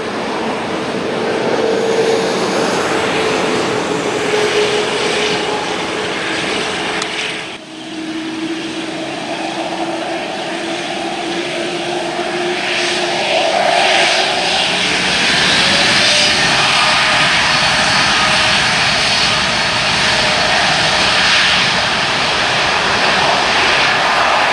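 Boeing 787-8 Dreamliner's GEnx-1B turbofan engines running with a steady jet whine as the airliner taxis, then growing louder about halfway through as the engines spool up.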